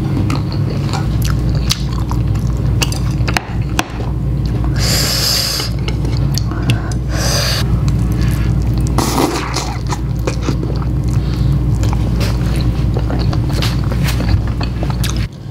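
Close-up eating sounds: instant noodles slurped in with chopsticks, in short hissy slurps about five and seven seconds in, then chewing with wet mouth clicks and smacks. A steady low hum lies underneath.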